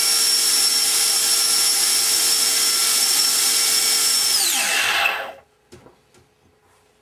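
90 mm electric ducted fan with a Change Sun CS12 twelve-blade rotor, running flat out on a thrust test with a loud, steady high whine. About four seconds in it is throttled off: the pitch falls quickly as the fan spins down and stops about a second later, followed by a couple of faint clicks.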